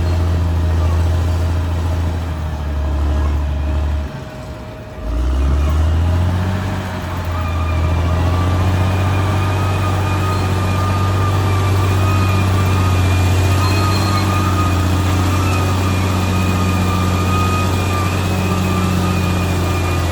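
Caterpillar D6R XL bulldozer's diesel engine running with a steady low note; about four seconds in it drops away for a moment, then rises back. A steady high-pitched whine sits over the engine from about seven seconds in.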